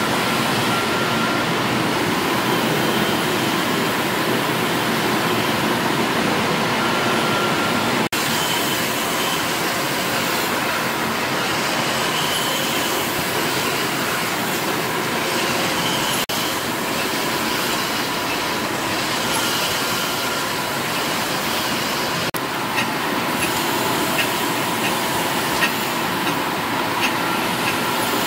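Stationary steam engines running in an engine hall: a steady, loud mechanical noise of moving machinery, changing at three cuts between engines, with a few light clicks in the last few seconds.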